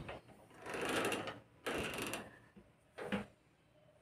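Handling noises at a steel almirah as it is opened: a few scraping, rattling sounds and a short knock about three seconds in.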